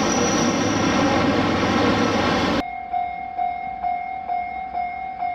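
Train running close by with loud, dense wheel-and-rail noise, which cuts off abruptly about two and a half seconds in. It gives way to a quieter steady electronic ringing tone that pulses about twice a second.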